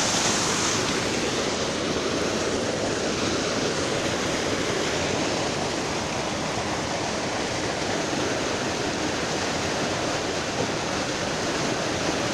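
Steady rush of flowing water, an even hiss without breaks or distinct events.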